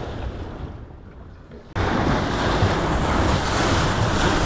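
Wind and sea noise fading away over the first second and a half, then a sudden cut to loud rushing and splashing of a moving boat's wake at the stern, with wind on the microphone.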